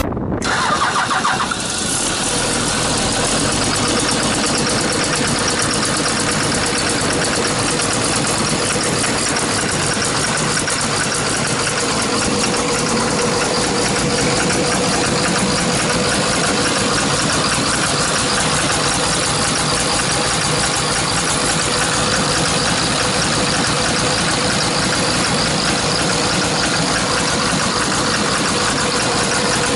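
Hyundai R290LC-7A excavator's diesel engine cranked by the starter, catching about two seconds in, then running steadily. The engine is reported to be misfiring, and a knock is heard in it.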